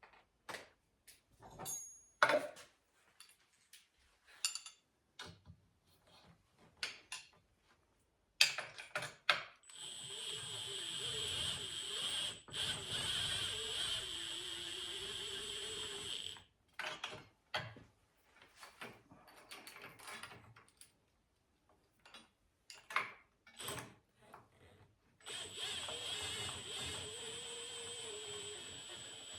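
Clicks and knocks of metal parts being handled, then a power drill running twice for several seconds at a time, its motor pitch wavering as it drives bolts into a chain grinder stand.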